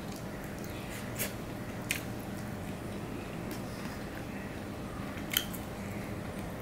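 Eating rice and curry by hand from a steel plate: soft wet chewing and squishing of the food, with a few sharp clicks and smacks about a second in, near two seconds and, loudest, after five seconds. A low steady hum lies underneath.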